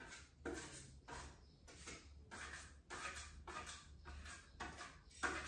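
Faint, repeated strokes of a painting tool rubbing over a wall while blending and mottling a faux-marble paint finish, about one stroke every half second, over a low steady hum.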